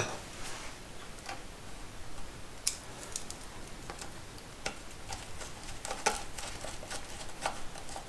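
Scattered light metal clicks and taps as a screwdriver and the speedometer drive cable end are worked into the speedometer drive at a motorcycle's front wheel hub. The clicks come irregularly, with a few sharper ones through the middle and latter part.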